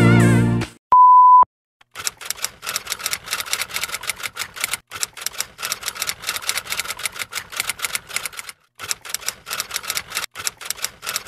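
A short single-pitched beep, then a rapid run of typewriter key clicks: a typing sound effect that pauses briefly twice.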